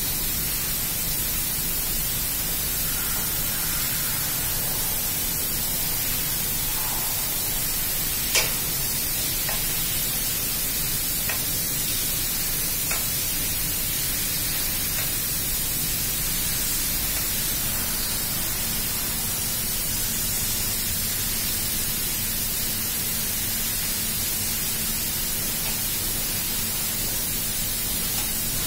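Steady hiss that does not change, with a sharp click about eight seconds in and two fainter clicks a few seconds later.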